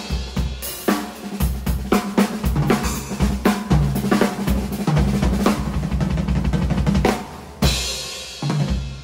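Acoustic drum kit played live: a busy groove of snare, bass drum and hi-hat. Near the end come two cymbal crashes, the last one ringing out and fading.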